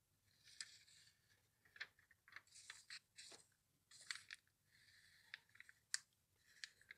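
Faint rustling of glossy catalogue pages being turned and smoothed flat by hand, with a few light ticks and taps of paper and fingers.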